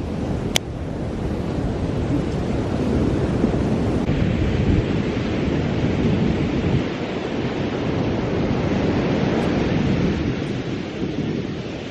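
Wind buffeting the microphone over the rush of surf: a steady low rumbling noise, with a brief click about half a second in.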